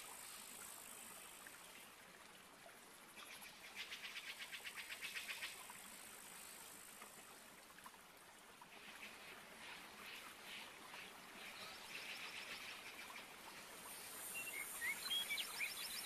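Faint tropical rainforest ambience: rapid pulsed trills, about three to five seconds in and again from about eight seconds on, over a high steady buzz that drops away after the start and returns near the end. A few short chirps come in the last couple of seconds.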